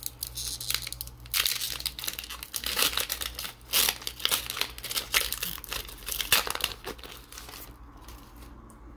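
Foil booster-pack wrapper of a Pokémon trading card pack being torn open and crinkled in the hands, in an irregular crackling run that dies down near the end as the cards come out.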